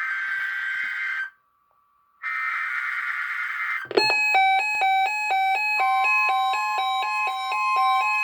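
Two bursts of Emergency Alert System (SAME) header data from a NOAA Weather Radio broadcast, a harsh buzzing screech with a gap of about a second between them. About four seconds in, a weather alert radio's warning alarm starts: a fast repeating pattern of stepped beeps, about two and a half a second, with a steady alert tone joining beneath it near six seconds. The receiver plays its warning alarm rather than its watch alarm because it is set to siren test.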